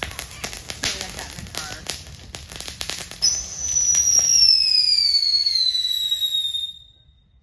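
Ground firework spraying sparks: rapid crackling pops for about three seconds, then a loud whistle that slowly falls in pitch and cuts off near the end.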